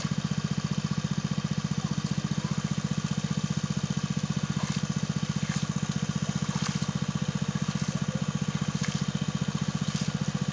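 A small engine running steadily at constant speed, its exhaust beat fast and even, with a few faint short clicks over it.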